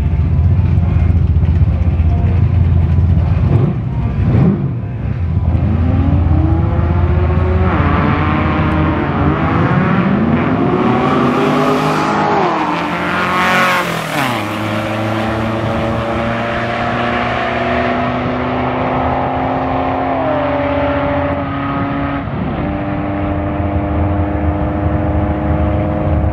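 VW Beetle drag car at the line with its engine rumbling, then launching hard. The engine revs up in several rising sweeps, breaking at each gear change, then holds steadier tones as the car runs down the strip.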